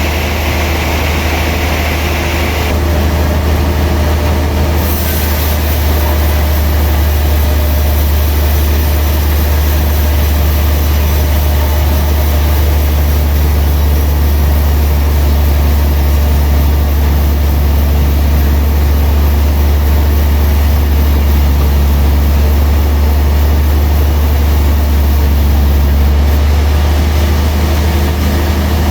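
Large sawmill machinery running steadily with a loud, deep hum. A higher hiss cuts off about three seconds in.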